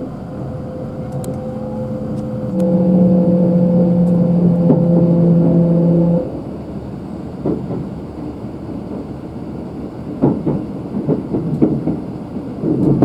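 Kintetsu limited express train at departure: a steady hum, then a loud signal of several held tones for almost four seconds, cutting off suddenly, followed by irregular knocks and rumble.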